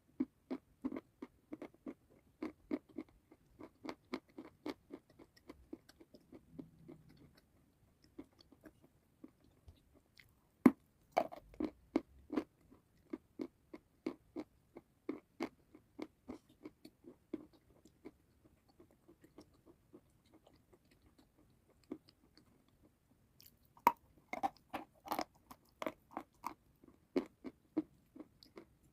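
Close-miked chewing of crunchy food: a steady run of crunches about three a second, with a loud bite about eleven seconds in and another about twenty-four seconds in.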